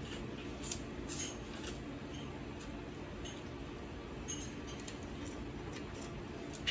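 Faint scattered clicks and taps of a small metal tool and hard shell as a boiled crab claw is worked at, with a sharper click near the end; the claw shell is too hard to crack by hand.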